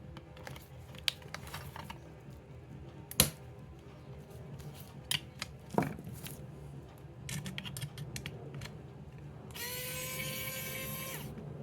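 Small parts and screws clicking and knocking on a metal chassis as a synth module's front panel is dismantled, then a small electric screwdriver whirring steadily for about a second and a half near the end.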